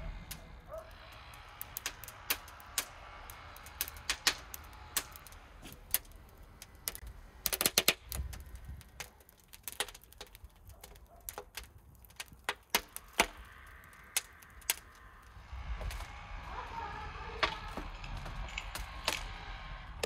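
Irregular sharp clicks and knocks, as of objects being handled, set down or struck, with a dense flurry of them about eight seconds in.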